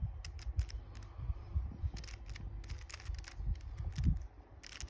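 A 3x3 Rubik's Cube being turned by hand through an algorithm: a quick, irregular run of plastic clicks as its layers snap round.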